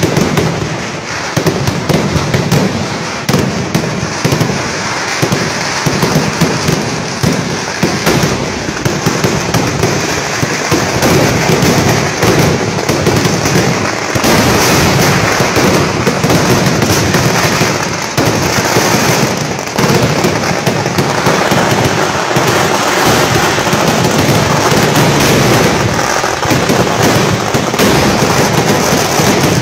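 Fireworks display in a dense, continuous barrage: aerial shells and crackers bursting one on top of another without a break, with loud crackling throughout.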